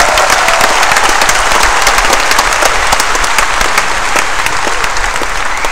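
Large audience applauding, dense clapping that eases slightly near the end.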